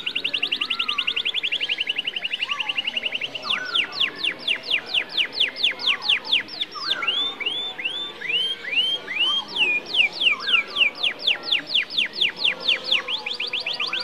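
Domestic canary in full, continuous song: a very fast trill of downward-sweeping whistled notes, slowing to a steadier series of sweeps, then a run of slower looping notes about midway, before speeding back into fast trills near the end.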